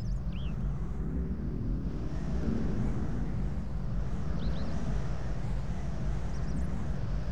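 Outdoor ambience: a steady low rumble with a few brief high chirps.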